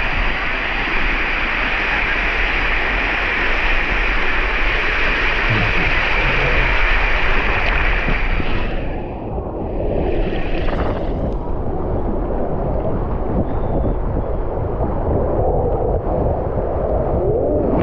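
Water rushing down an open waterslide under a sliding rider, heard close up with spray splashing over the microphone. About halfway through, the rush turns duller and lower.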